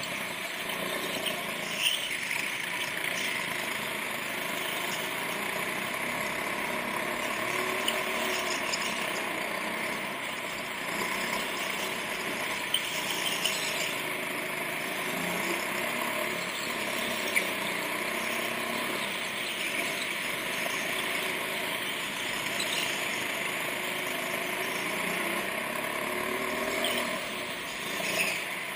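Go-kart engine running through a lap, its pitch rising and falling through the corners, with tyres squealing on the smooth track surface. A few brief knocks occur.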